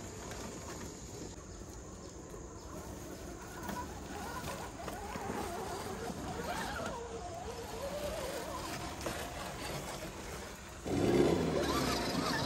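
Electric motors and geared drivetrains of scale RC rock crawler trucks whining as they crawl over dirt and rock, the pitch wavering with the throttle. The sound gets much louder about eleven seconds in, as a truck comes close.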